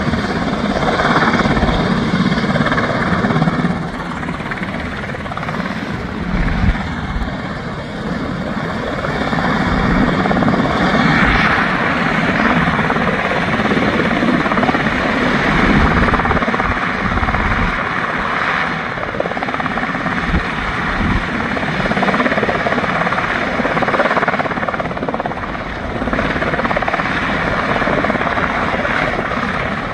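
Sikorsky MH-60T Jayhawk helicopter with twin General Electric T700 turboshaft engines and rotors running at close range as it lifts off into a low hover. The sound is loud, dense and steady, with a high turbine whine that fades a few seconds in.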